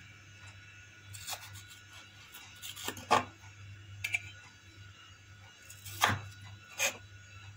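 Crinkle-cut knife chopping through raw potato onto a wooden cutting board: four separate knocks, the loudest about three and six seconds in.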